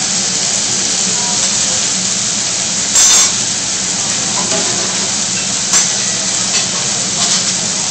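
Food sizzling steadily on a hot teppanyaki griddle, with short sharp clacks and scrapes of the chef's metal spatula on the steel plate: a strong one about three seconds in and a few lighter ones later.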